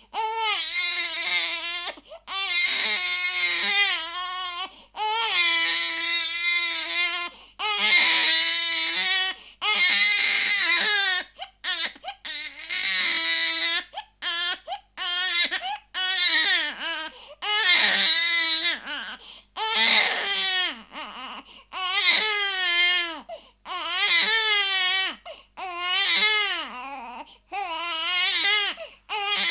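Baby crying hard in a run of wailing cries, each a second or two long with a wavering pitch, broken by short gasps for breath.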